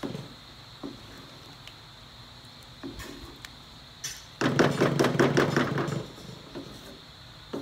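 A wooden spatula knocking and scraping against a metal pan while stirring a thick, sticky mash: a few soft knocks, then a loud run of rapid clattering for about a second and a half past the middle.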